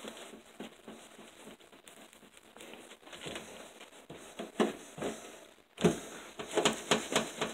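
Knife cutting through a baked pizza on its cardboard base: a run of crackling, crunching clicks that come thicker and louder over the last couple of seconds.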